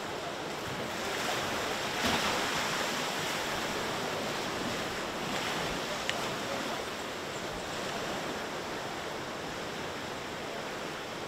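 Sea waves washing against a rocky shoreline: a steady rush of surf that swells a little about two seconds in, with a short click about six seconds in.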